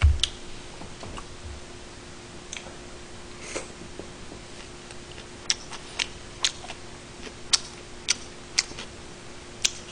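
A soft thump at the start, a few scattered sharp clicks, then a run of sharp clicks about two a second through the second half, over a faint steady hum.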